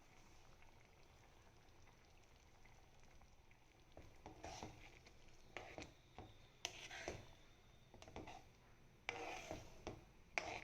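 Faint kitchen handling sounds over near silence: a few short scrapes and knocks, starting about four seconds in and clustering near the end.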